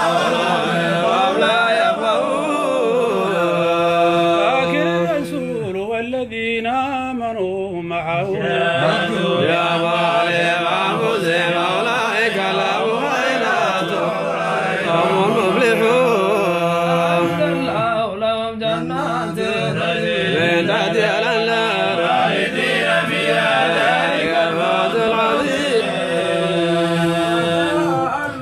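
Men's voices chanting Quran recitation in the melodic tajwid style, with long held notes that rise and fall in ornamented lines. At times more than one voice sounds together, as in a Somali subac group reading.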